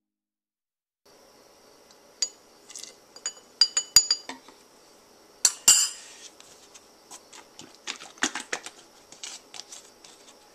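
Metal spoon clinking and scraping against a food processor bowl and the neck of a whipped cream dispenser while raspberry ice cream mixture is spooned in: a run of sharp taps and clinks starting about a second in, loudest about four and five and a half seconds in.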